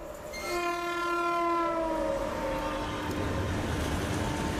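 Indian Railways locomotive horn sounding one long blast that drops in pitch as the train runs past, then gives way to the steady rumble of the coaches passing through the station at speed.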